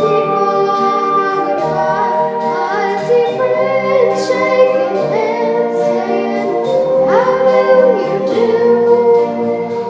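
A young female voice singing a slow melody over instrumental accompaniment, with vibrato on the held notes.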